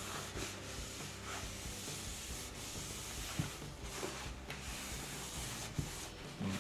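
A rag rubbing over the oiled surface of a wooden bowl, wiping off excess tung oil, with a couple of light knocks along the way.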